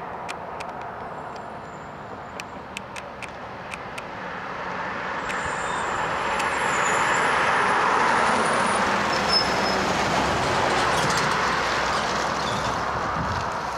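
Heil automated side-loader garbage truck driving past, its diesel engine and tyres growing louder as it approaches, loudest about halfway through, then slowly fading as it pulls away.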